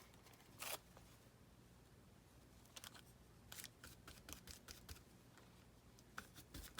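Near silence with faint, scattered taps and scratches of craft supplies being worked onto a paper page, coming in quick little clusters in the second half.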